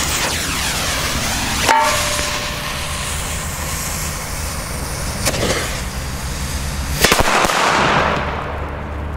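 Pack of Funke A firecrackers going off: a sharp bang with a short metallic ring about two seconds in, another bang near the middle, then a rapid cluster of bangs a couple of seconds before the end, trailing into a second of dense crackle.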